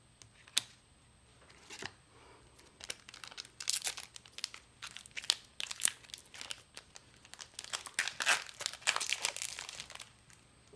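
Foil wrapper of a Final Fantasy Trading Card Game booster pack being torn open and crinkled: a sharp crackle just after the start, then a dense run of crackling from about three seconds in until near the end.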